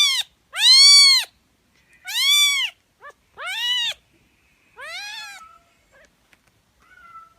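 Cat meowing repeatedly in high-pitched calls, about five meows, each rising and falling in pitch, the later ones growing fainter.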